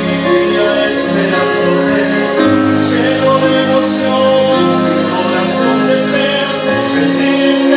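A man singing a Christian worship song into a microphone over instrumental accompaniment, with long held chords and bass notes that change every second or two.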